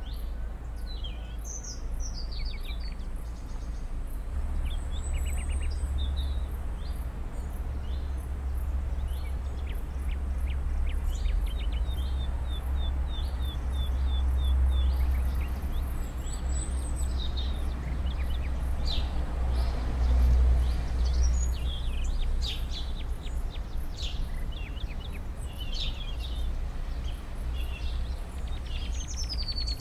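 Several small birds chirping and singing, short calls and quick whistled notes, including a fast run of repeated notes about halfway through, over a steady low rumble that grows stronger a few seconds in.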